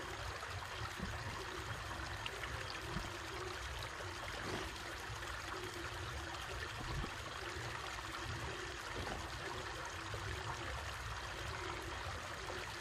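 Steady hiss of running water, like a nearby stream or trickle, with a few faint soft ticks.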